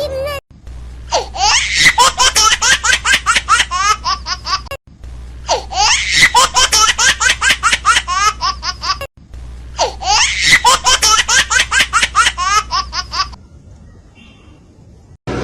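Bursts of rapid, high-pitched laughter, each about four seconds long. The same burst repeats three times in a row, ending about two seconds before the end.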